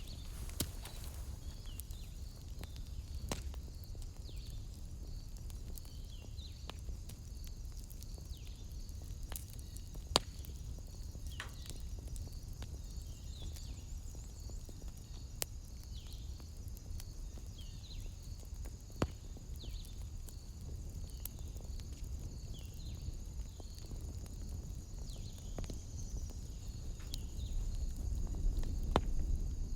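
Wood fire burning in a fireplace, crackling with scattered sharp pops over a low rumble. A steady high trill with faint repeated chirps runs behind it.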